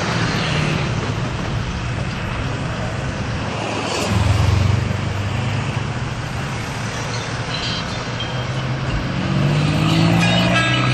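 Tuk tuk's engine running as it drives in traffic, heard from inside its open-sided cabin with road and traffic noise around it. The engine grows louder about four seconds in.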